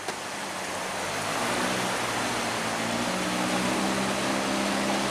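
Wooden boat's engine running hard with a steady drone, under the loud rush of fast-flowing water and the boat's bow wash as it pushes against the current. The engine tone grows stronger about a second and a half in.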